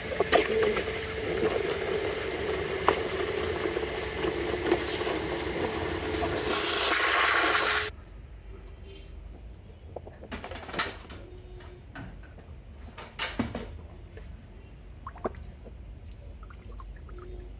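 Total 1400 W wet and dry vacuum cleaner running with a steady hum and airflow noise, which turns louder and hissier just before it stops abruptly about eight seconds in. After that there are only a few light clicks and knocks.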